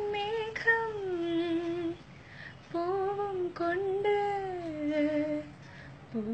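A woman humming a slow, wordless melody in two long phrases, with a short pause about two seconds in.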